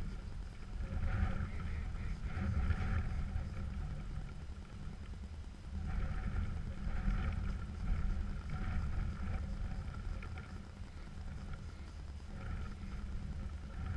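Wind rumbling on the microphone, with three spells of choppy, honking bird calls, likely geese calling, over it.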